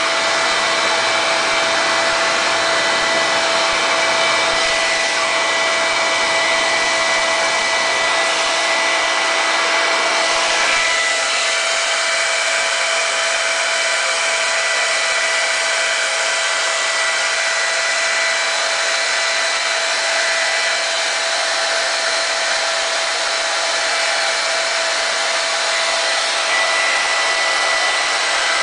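Handheld hair dryer blowing steadily, a rush of air with a steady whine on top. About eleven seconds in, the lower part of its sound drops away a little.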